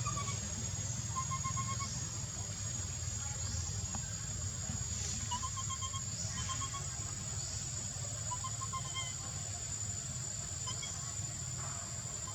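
Steady high-pitched insect drone over a low rumble, with short faint chirping calls every second or two.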